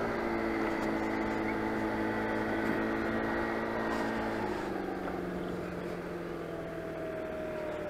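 Motor scooter engine running while being ridden, a steady drone that drops in pitch and gets a little quieter about halfway through.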